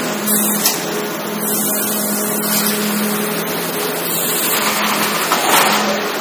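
Steady brick-plant machinery running with a low hum, broken by a few short hisses.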